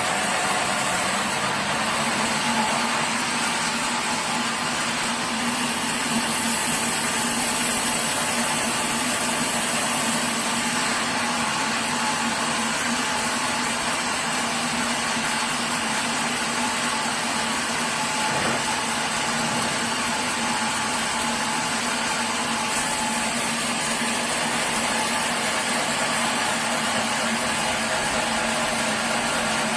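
Sawmill machinery running steadily: an even mechanical drone with a constant hum, no change in loudness throughout.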